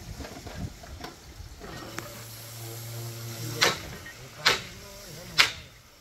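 Three sharp knocks, each about a second apart, over a faint hiss; a steady low hum sounds for about a second and a half just before the first knock.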